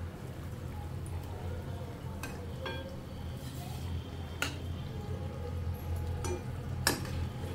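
A metal spoon clinks sharply against the frying pan several times, loudest near the end, as gulgule (jaggery and wheat-flour fritters) are stirred and lifted out of the hot oil. A low steady hum runs underneath.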